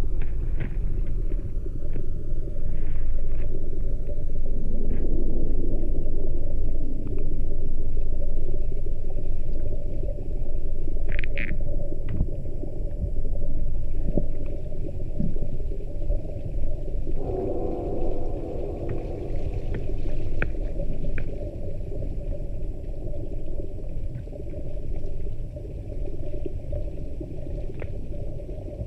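Deep, steady rumble of water, from a processed field recording, with scattered clicks, a short high chirp about eleven seconds in and a fuller swell of sound a little past the middle.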